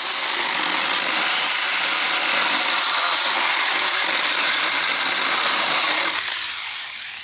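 Battery-powered 6-inch mini chainsaw running under load, its chain cutting through a thick piece of hard wood; the sound eases off about six seconds in.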